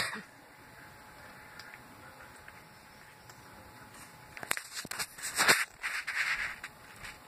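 A cat makes a quick cluster of short, noisy sounds starting about four and a half seconds in, the loudest near the middle of the cluster, after a single sharp click at the very start.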